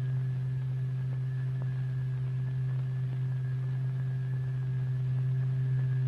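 A steady low hum-like tone from the sound source driving the vibrating glycerin, held on one pitch with fainter higher overtones above it.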